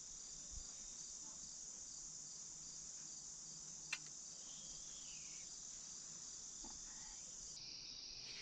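Crickets chirring steadily and faintly, with a single sharp click about four seconds in.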